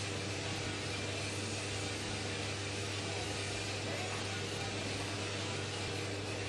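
Coffee Mart RT4003 coffee roaster running: a steady, even rushing noise over a constant low hum.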